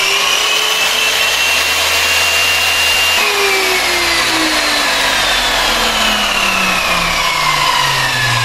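King KP-385 10-inch sliding compound miter saw's 2200 W motor spinning the blade at full speed with no cut, a steady high whine. About three seconds in it is switched off, and the whine falls steadily as the motor and blade wind down.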